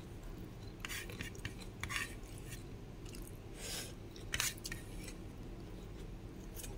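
Eating by hand from a plate: scattered light clicks and short scrapes, a few at a time, with a longer scrape just before the middle and a sharper cluster of clicks shortly after it. A low steady hum lies underneath.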